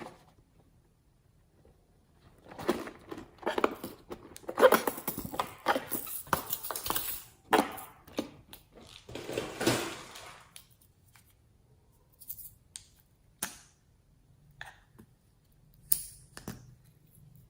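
Slime being worked by hand: sticky crackling and squishing in dense runs, then a few separate clicks and pops.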